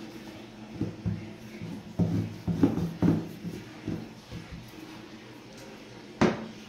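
A wooden rolling pin and dough being handled on a pastry board: a run of soft knocks and thuds as the pin is picked up and the dough ball pressed flat, then one sharp knock near the end as the pin is set down on the board.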